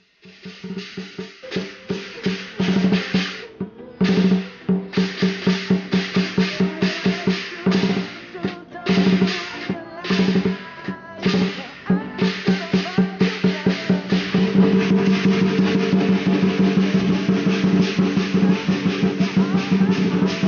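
Fast percussion music: drums struck in quick rolls over a steady ringing tone, starting just after the beginning and growing denser and louder partway through.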